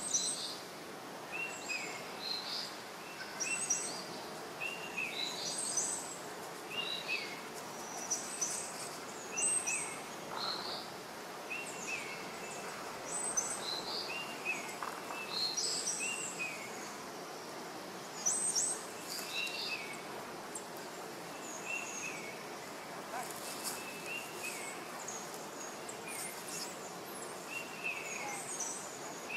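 A bird calling again and again in short high chirps, about one a second, over a steady outdoor hiss.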